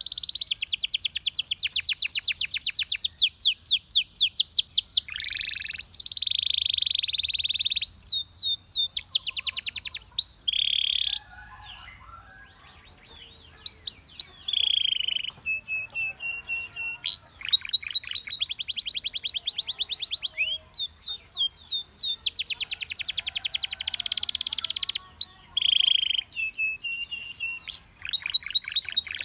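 Canary singing: long, rapid trills of repeated sweeping notes, alternating with short steady whistled notes, with a brief break about midway.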